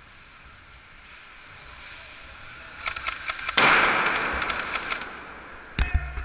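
Airsoft gunfire in an indoor arena: irregular sharp cracks and BB hits beginning about three seconds in, with a loud hiss lasting over a second in the middle of them. A couple of knocks near the end.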